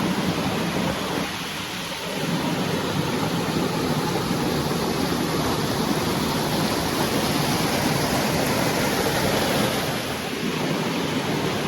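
Steady rushing water noise of a small creek running over a series of falls.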